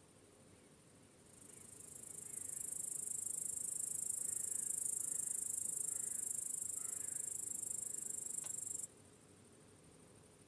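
Crickets chirping in a dense, high, continuous trill. It swells in about a second in and cuts off abruptly about a second and a half before the end, leaving only a faint hiss.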